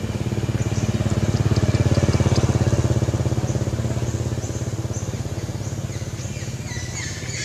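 A small engine running nearby, with a low pulsing note that grows louder for about two seconds and then slowly fades.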